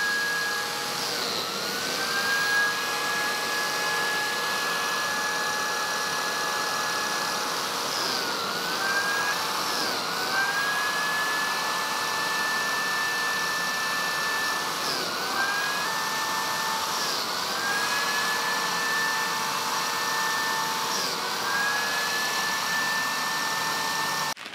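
Makita biscuit joiner running while cutting slots for flat biscuits in oak boards. Its motor whine drops briefly and climbs back about six times as the blade plunges into the wood. A dust extractor runs steadily through the hose attached to the joiner.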